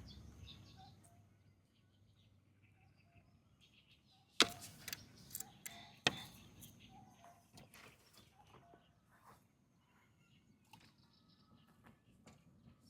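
Quiet dawn outdoor ambience with faint bird chirps, broken by two sharp clicks about four and a half and six seconds in and a few smaller ticks after them.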